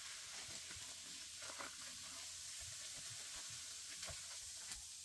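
Carbonated mineral water fizzing on baking soda: a faint, steady hiss of bursting bubbles with a few small ticks.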